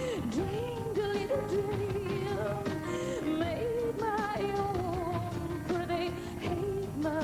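Live pop-rock song: a woman singing long, wavering notes with vibrato over the band's accompaniment.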